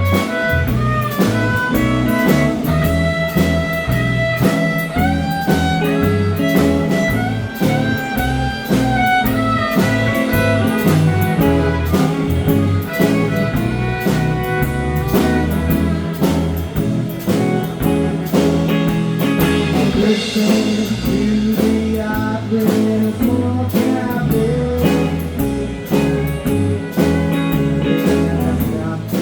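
Live blues band playing an instrumental stretch: a bending guitar lead over bass and a drum kit keeping a steady beat.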